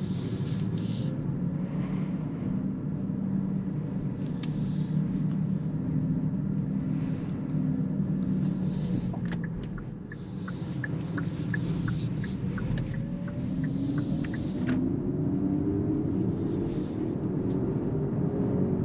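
Cabin sound of a Kia EV6 electric car pulling away at low speed: a steady low road rumble, with a turn-signal indicator ticking about twice a second for a few seconds in the middle. From a little past halfway, the electric drive's whine rises steadily in pitch as the car gathers speed.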